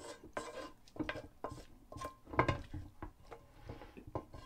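A utensil knocking and scraping against a heavy cast iron skillet as fried onions and carrots are pushed out of it into a slow cooker: a string of irregular short clinks and knocks.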